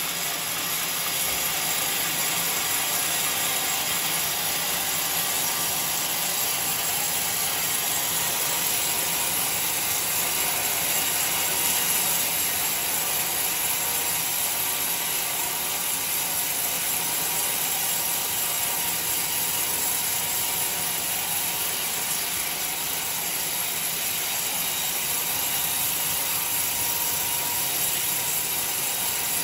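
Homemade band sawmill's blade cutting lengthwise through a coconut palm log: a steady, high hiss from the saw in the wood over the running machine, holding an even level throughout the cut.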